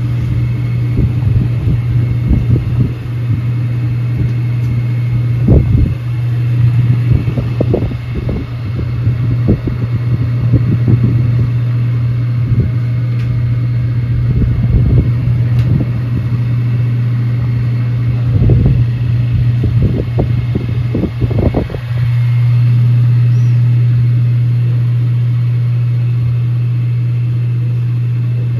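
A steady low mechanical hum, with irregular low thumps and rumbling over it that stop about three-quarters of the way through, leaving the hum on its own.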